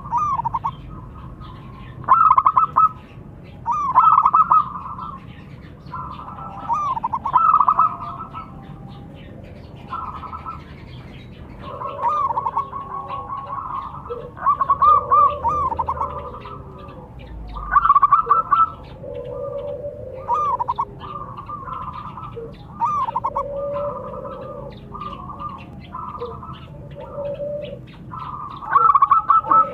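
Zebra doves (perkutut) cooing and answering each other. One bird gives higher, rapidly trilled phrases every second or two, and from about halfway through a second, lower-pitched bird answers between and over them.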